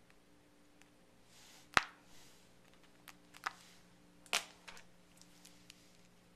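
Short-eared owl's bill clicking: a handful of sharp, separate clicks, the loudest about two seconds in and another strong one past the middle, with fainter ticks after.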